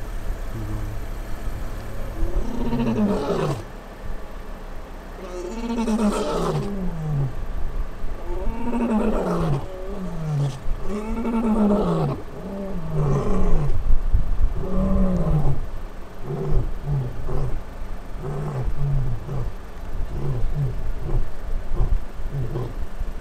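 Male lion's territorial roar: about six long roars that rise and fall, then a string of shorter grunts that come quicker and shorter toward the end.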